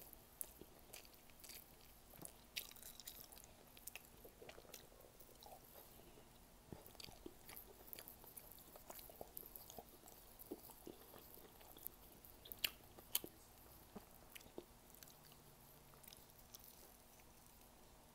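Faint eating sounds of a person eating squid and rice by hand: chewing with scattered small clicks and smacks, two of them sharper a little past the middle.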